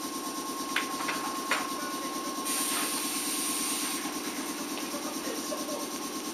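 Stationary electric commuter train at a platform, its on-board equipment running with a steady low pulsing hum and a thin steady tone. Two sharp clicks come about a second in, then a burst of air hiss for about a second and a half midway, typical of pneumatic doors opening.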